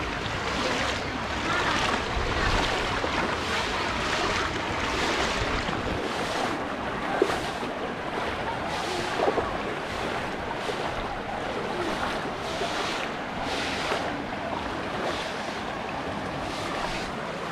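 Floodwater rushing over a road: a steady roar of water that swells and ebbs in quick surges. Two short sharp sounds stand out about 7 and 9 seconds in.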